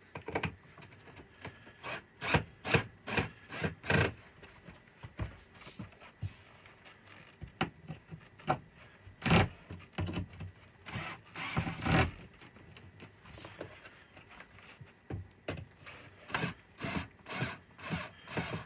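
Irregular knocks, clicks and scrapes from tools and hands working on a wooden camper bench, a string of sharp taps with quiet gaps between.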